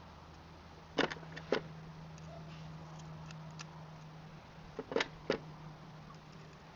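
Metal clutch parts clinking as they are handled and fitted back into a motorcycle clutch: two sharp clinks about a second in and three more around five seconds in, over a steady low hum.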